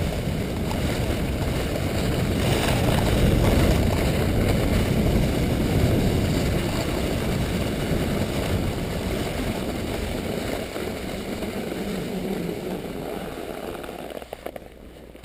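Sled runners scraping and hissing over groomed corduroy snow, a steady rumbling slide that grows quieter as the sled slows and dies away as it comes to a stop near the end.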